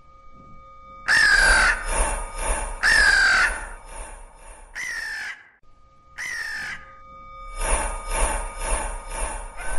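A crow cawing four times, each caw about half a second long with a falling pitch; the first two are the loudest. From about two-thirds of the way in comes a quick, rhythmic crunching of footsteps through brush, about three to four steps a second.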